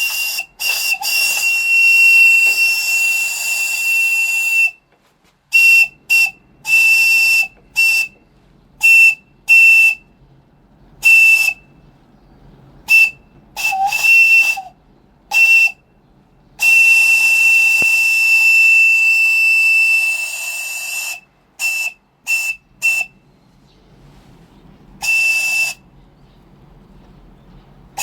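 Homemade steam whistle blowing one steady high note over a hiss of steam. It sounds a long blast, then a run of about ten short toots, a second long blast, and a few more short toots near the end.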